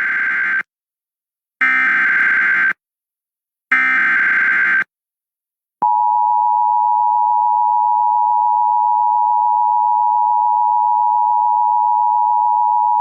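Emergency Alert System SAME header: three bursts of warbling digital data tones, each about a second long and a second apart, followed about six seconds in by the steady two-tone EAS attention signal (853 and 960 Hz). The sequence marks the start of a broadcast emergency alert, here a National Weather Service severe thunderstorm warning.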